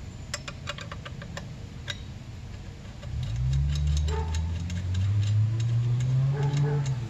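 A metal wrench clicking and clinking in quick, uneven ticks as it turns the 12 mm nut on a motorcycle's rear brake mount. About three seconds in, a louder low drone comes in, rising slightly in pitch, and stops just before the end.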